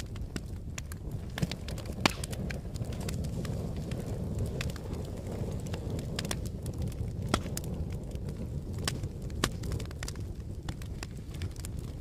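Wood logs burning in a fireplace: a steady low rumble of flame with irregular crackles and pops, the sharpest pops about two seconds in and again a little past seven seconds.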